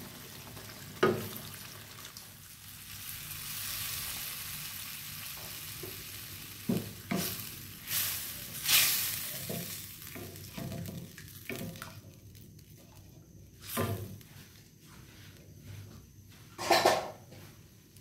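Water poured into a nonstick wok of simmering coconut-milk sauce, hissing and sizzling, the hiss dying down about two-thirds of the way through. A wooden spatula stirs and scrapes against the pan in a series of strokes, with a couple of louder knocks near the end.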